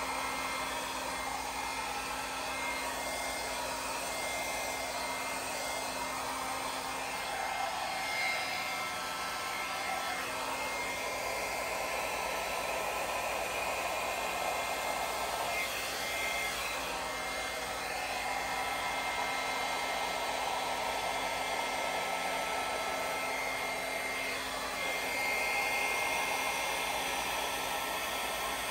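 Small handheld hair dryer running steadily: a constant rush of air with a thin high whine, blowing wet fluid acrylic paint across a canvas in a Dutch pour.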